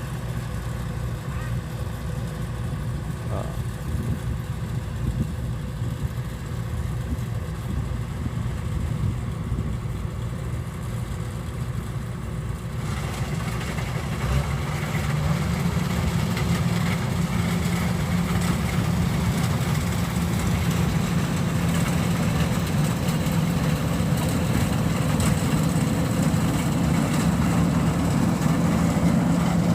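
Kubota DC93 combine harvester's diesel engine running steadily. About halfway through the sound grows louder and fuller, and a steady low hum holds from then on.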